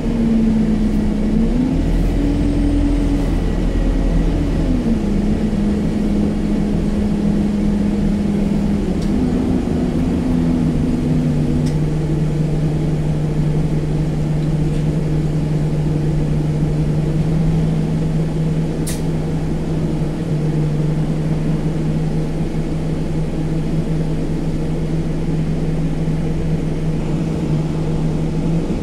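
Inside a new Alexander Dennis Enviro200 MMC single-deck bus on the move: the diesel engine's hum shifts up and down in steps over the first dozen seconds, then settles to a steady, lower drone over constant road rumble. A few faint ticks and rattles come through now and then.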